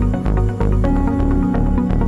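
Background music: an electronic track with a steady, heavy beat and held synth notes.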